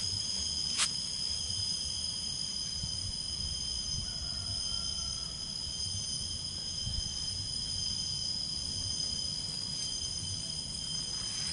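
A steady, high-pitched insect chorus, crickets, droning without a break, over a low rumble. A single sharp click comes a little under a second in.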